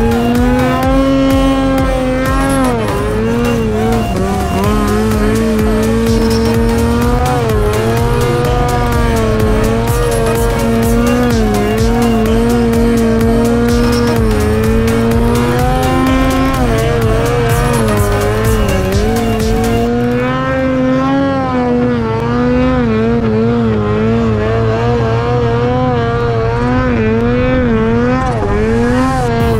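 Arctic Cat snowmobile engine running under way, its pitch rising and falling as the throttle is worked, over steady noise from the track and snow.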